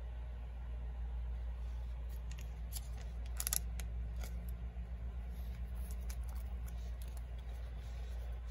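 Clear plastic card sleeves rustling and scraping faintly as trading cards are slid into them, with a brief louder rustle about three and a half seconds in. A steady low hum runs underneath.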